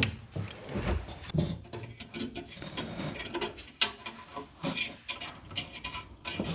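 Irregular clicks, knocks and metal clinks as a hand tool loosens and removes a furnace flame sensor from the burner assembly.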